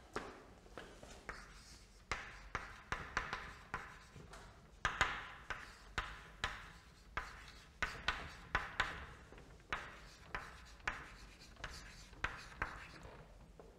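Chalk writing on a chalkboard: an irregular run of sharp taps as the chalk meets the board, each followed by a short scratchy stroke, as a line of words is written out.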